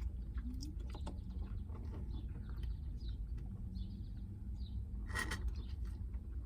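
Chewing and mouth sounds of eating a fry dipped in milkshake: scattered soft clicks and smacks, with one louder smack about five seconds in, over a steady low background rumble.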